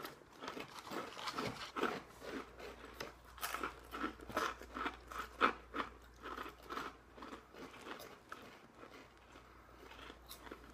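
Baked rice and corn puffs being bitten and chewed close to the microphone: a quick run of crisp crunches that thins out after about seven seconds.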